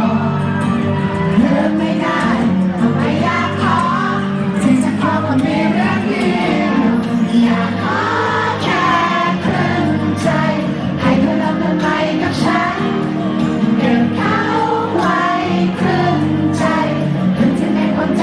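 Live Thai pop song: a singer's voice carrying the melody over steady instrumental accompaniment.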